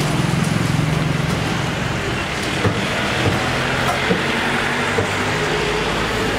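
Hot oil sizzling steadily in an iron kadai as moong dal kachoris are slid in one by one to deep-fry, over a steady low hum.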